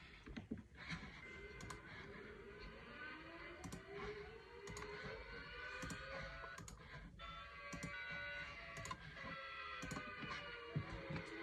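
Several outdoor warning sirens layered together, winding up with overlapping tones that slowly rise in pitch, with scattered sharp clicks throughout.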